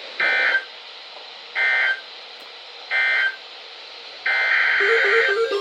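Emergency Alert System (SAME) digital data tones: three short, shrill warbling bursts about a second apart, the end-of-message signal closing the flood warning. A longer data burst starts near the end, the header of the next alert, with a low alternating two-note beeping beginning under it.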